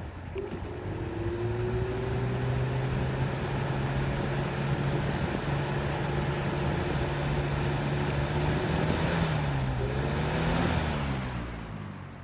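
Lasko box fan running: a steady rush of air over its motor hum. Near the end the pitch drops and the sound fades as the fan is switched off and winds down.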